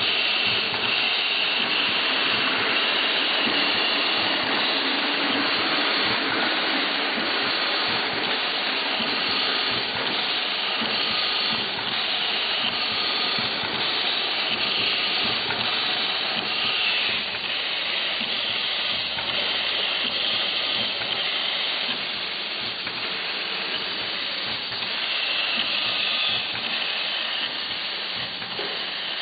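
Multi-spindle tapping machine running, a steady hiss with machine noise throughout.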